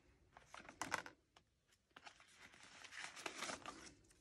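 Faint rustling and flicking of paper banknotes as a stack of bills is leafed through, once about a second in and again around three seconds in.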